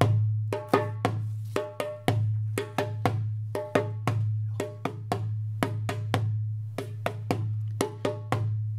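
Tam-tam drumming: a hand drum beaten in a quick rhythm of sharp, ringing strikes, several a second, over a steady low hum.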